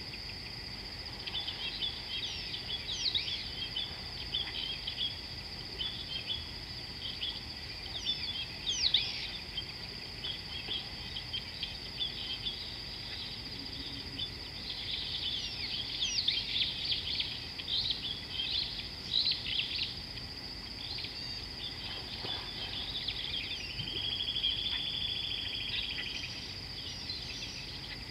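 Wild birds chirping and calling, busiest in the second half, over a steady high-pitched insect drone. A buzzing trill lasts about two seconds near the end.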